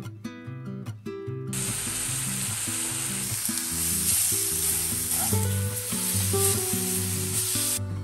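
Food sizzling in a hot frying pan: a dense steady hiss that starts about a second and a half in and cuts off shortly before the end, over acoustic guitar music.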